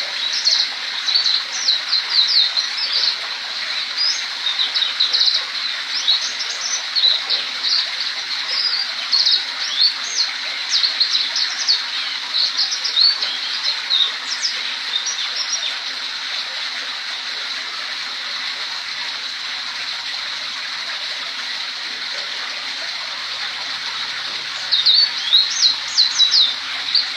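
Young blackthroat (black-throated canary) singing quick, high twittering phrases, practising its rolling trill. The song stops about halfway through, leaving only a steady hiss for roughly nine seconds, then starts again near the end.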